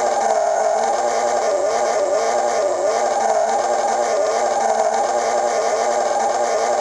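RC drift car's electronic sound unit playing a synthetic engine note that rises and falls repeatedly as the throttle is worked, overlaid with a steady high tyre-squeal sound for drifting, heard through a small speaker.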